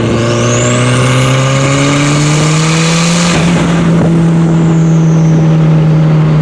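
Turbocharged Scion tC four-cylinder with an open exhaust pulling hard under boost, about 9 psi at part throttle. The engine note climbs with a high turbo whistle rising over it. About halfway through, the engine pitch steps up and holds steady while the whistle falls away.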